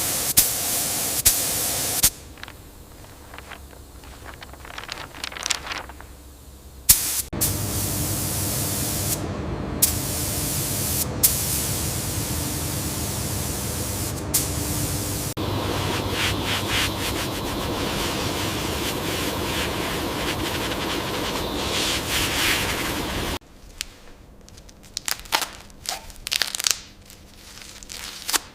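Loud spraying hiss of a compressed-air tool in the paint workshop: a short burst at the start, then a long steady spray for about sixteen seconds that cuts off suddenly, followed by scattered clicks and knocks.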